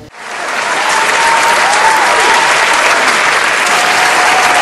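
A large crowd applauding. It starts suddenly, builds over the first second to loud, dense clapping and holds steady, with a faint thin tone wavering above it.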